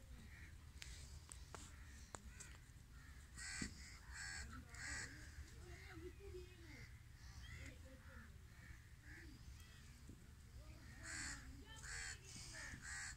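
Crows cawing in two short runs of three harsh calls each, about three and a half seconds in and again near the end, faint over a steady low rumble.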